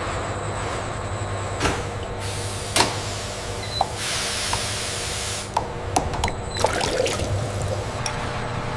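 Steady processing-machinery hum and hiss, with a few sharp clicks and knocks.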